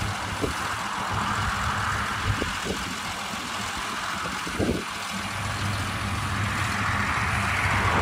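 John Deere combine harvester running steadily while harvesting an oilseed crop, heard at a distance: a low, even engine hum under a broad hiss from the machine working.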